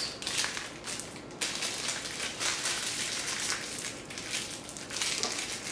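Slippery plastic fruit-snack pouch crinkling and crackling as it is squeezed and pulled at by hand in a failed attempt to tear it open.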